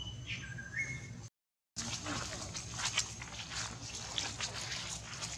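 A brief whistle-like call of two or three steady notes stepping down in pitch, broken off by a moment of dead silence; then dry leaf litter crackling and rustling with many small clicks as a macaque walks over it.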